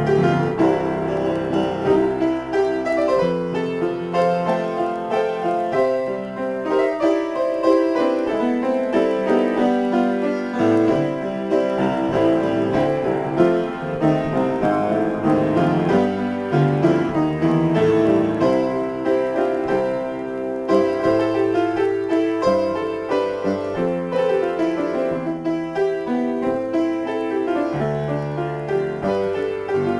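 Upright piano played solo in a free improvisation, with chords and melody notes sounding continuously at an even loudness and no pauses.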